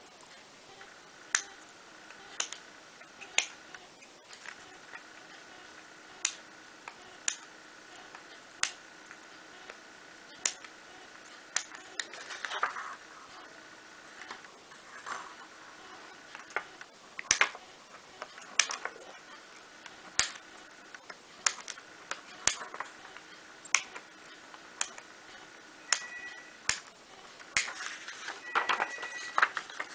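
Small pointed parchment-craft scissors snipping parchment paper: sharp clicks, irregular, roughly one a second, with a short paper rustle about twelve seconds in and again near the end.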